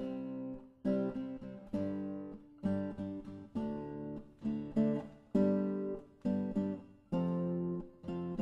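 Background music: an acoustic guitar playing chords, struck about once a second and left to ring and fade.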